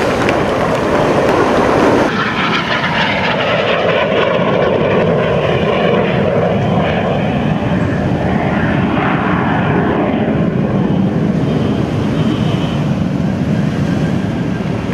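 Jet noise from a formation of Aermacchi MB-339 jet trainers flying overhead, a steady loud rush. It changes abruptly about two seconds in, and then sweeps down and back up in pitch as the jets pass.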